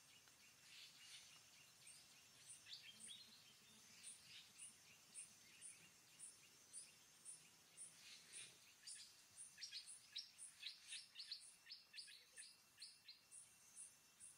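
Faint outdoor ambience: birds give quick series of short descending chirps, and a high-pitched insect call pulses about twice a second from about three seconds in.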